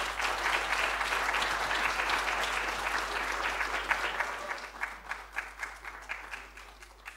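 Audience applauding, dense at first, then thinning out to scattered single claps that die away near the end.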